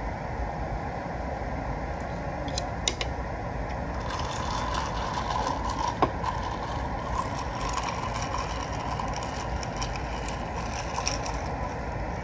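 Steady low rumble and hiss of background noise, with a few sharp clicks about three seconds in and again near six seconds, and light clatter through the second half.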